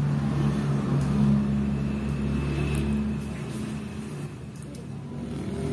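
A steady, low, engine-like mechanical hum with a few held low tones, easing slightly about four seconds in.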